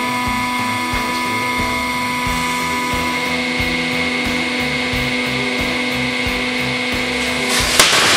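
Hydraulic press pump running with a steady whine. Near the end, about a hundred firecrackers under the red-hot press tool go off together in a dense burst of crackling, with one sharp bang.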